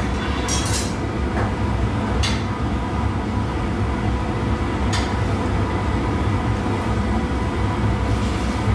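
Gas-fired glassblowing furnace running with a steady low roar, with a few short clicks over it.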